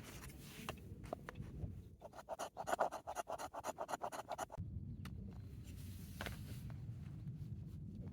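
A rapid run of scraping strokes, about ten a second, lasting about two and a half seconds from about two seconds in.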